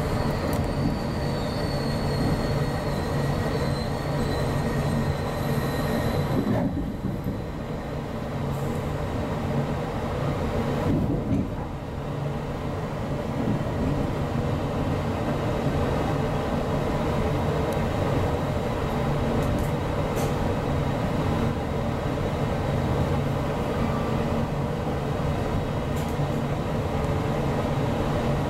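GO Transit bilevel commuter train running, heard from inside the coach: a steady rumble and hum from the wheels and train. A thin high wheel squeal rides over it for the first several seconds, then fades out.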